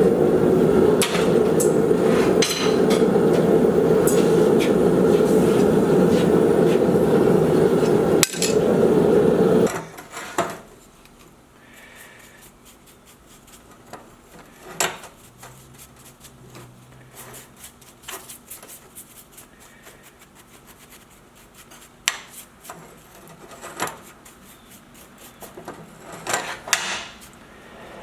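Gas forge burner running with a steady rushing roar that cuts off suddenly about ten seconds in. Afterwards come scattered light metal taps and clinks of hand tools on the iron hinges.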